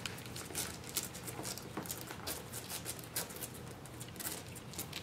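Mal-Shi puppies nearly three weeks old scrambling and nuzzling over each other on a blanket, making an irregular stream of small scratches, clicks and rustles.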